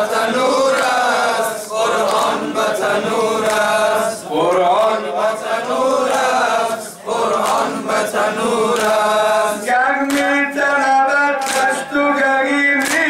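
Men's voices chanting a Persian Shia noha (mourning lament) together. From about ten seconds in, sharp rhythmic slaps of hands striking chests (matam) join the chant, beating in time with it.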